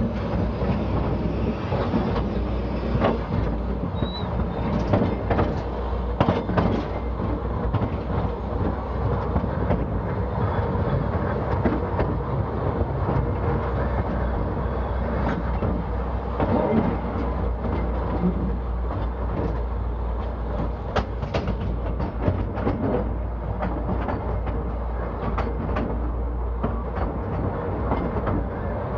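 Underground colliery train running along its track: a steady noise of wheels on rails over a low hum, broken by frequent irregular clicks and knocks.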